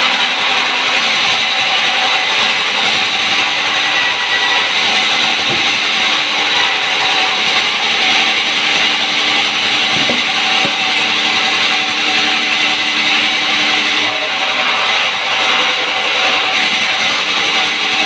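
Sawmill saw cutting through timber: a loud, steady, high-pitched cutting noise with the machine's drive hum underneath and a couple of faint knocks partway through.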